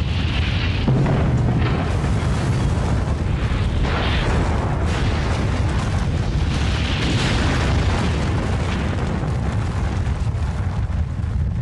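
Continuous low rumble of a nuclear explosion and its blast wave, steady throughout with a few brief swells of hissing noise.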